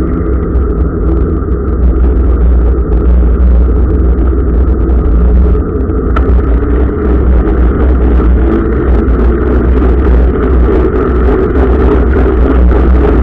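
A motor vehicle running steadily with a deep, continuous rumble, and a single click about six seconds in.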